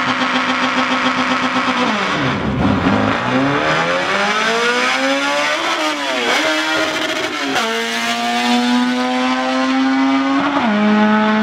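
Drag-racing car's engine held at steady revs on the start line, then launching about two seconds in and pulling hard down the strip, its pitch climbing through each gear with three upshifts.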